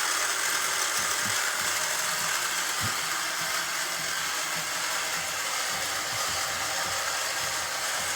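Small electric motors of a K'nex roller coaster running steadily, driving the lift and boosters with a steady whirring rattle.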